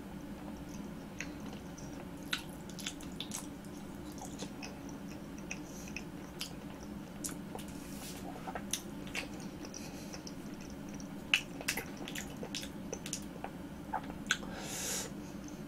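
Close-miked chewing of a firm, chewy green-grape ball jelly, with scattered wet mouth clicks and smacks as the gel is worked between the teeth. A short breathy hiss comes near the end.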